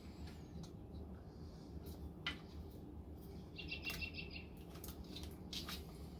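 Faint scattered clicks and taps from handling a front-load washer's direct-drive stator and its plastic wiring plugs, over a steady low hum. A bit past the middle comes a quick run of about seven high chirps.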